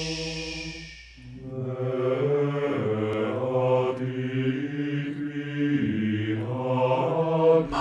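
Low, droning chant-like vocal music, deep voices holding and slowly shifting long notes. A hushing 'shhh' fades out about a second in, and after a brief dip the layered low voices swell back in.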